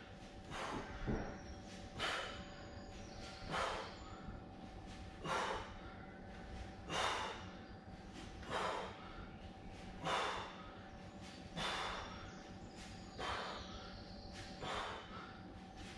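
A man breathing hard under effort through dumbbell push-press reps, with one sharp, noisy exhale about every one and a half seconds.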